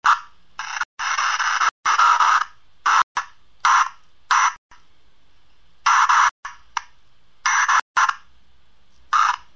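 Irregular short bursts of hissing static, each under a second long, cutting in and out abruptly with quieter gaps between them.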